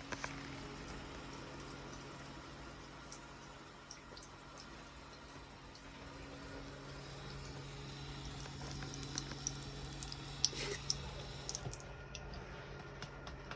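Cat drinking from running water: a steady trickle over a low, even hum, with soft lapping clicks that come more often in the second half.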